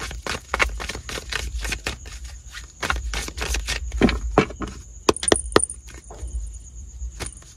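A deck of tarot cards being shuffled by hand: a quick, irregular run of card flicks and slaps, with a louder cluster about four seconds in.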